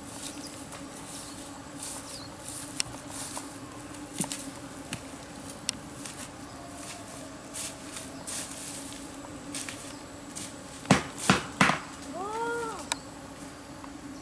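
Footsteps rustling and crackling through grass and undergrowth over a steady insect drone. About 11 seconds in come three loud sharp cracks, like twigs snapping underfoot, then a short call that rises and falls in pitch.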